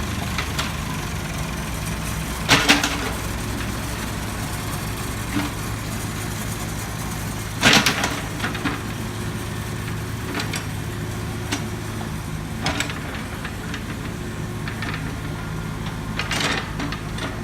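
Diesel engine of an excavator or loader running steadily at a low hum. Several sharp clanks stand out over it: two loud ones at about 2.5 and 8 seconds in, and the loudest near the end.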